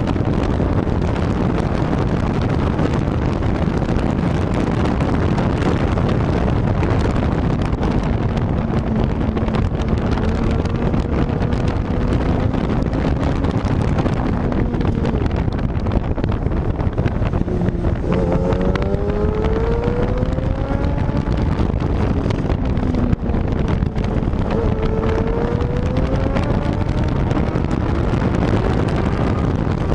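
Yamaha R6 sport bike's inline-four engine at track speed, largely buried under heavy wind rush on the microphone. The engine note climbs twice in the second half as the bike pulls hard up through the revs.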